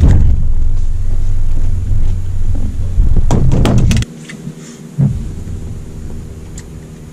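Low rumble of wind buffeting the microphone, with a quick run of sharp clicks and knocks just after three seconds. About four seconds in the sound drops abruptly to a faint steady hum, with a single thump a second later.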